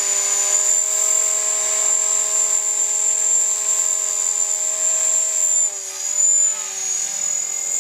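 Radio-controlled model helicopter running on the ground with its rotor spun up: a steady high whine over a lower hum. About six seconds in the pitch wavers and the sound dips, then surges as it lifts off.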